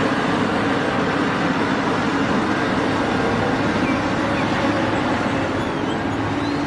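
Steady running of a Cat 6015B mining excavator's diesel engine: a constant, even rumble with a low hum. It starts and cuts off abruptly with the inserted machine footage.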